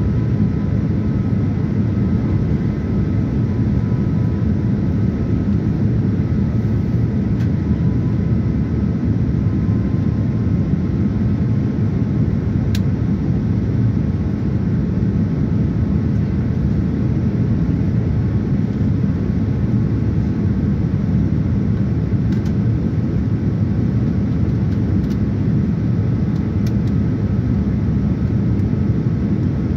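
Steady cabin noise of a Boeing 787-9 airliner in flight, heard inside the cabin by the wing: an even, deep rumble of airflow and engines, with faint steady whine tones above it and a few faint ticks.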